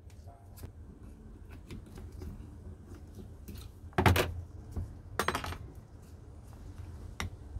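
A metal brake caliper, a Lucas rear unit, being handled on a workbench: small clicks and knocks, with two louder, short scraping knocks about four and five seconds in.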